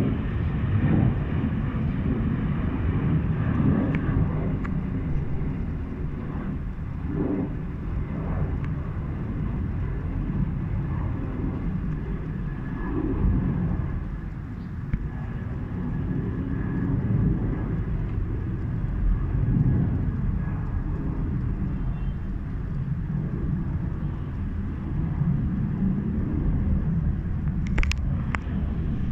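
Cabin noise inside a Boeing 737-700 airliner: a steady low rumble from its CFM56-7B jet engines and the rushing air, wavering slightly in level, with a sharp click near the end.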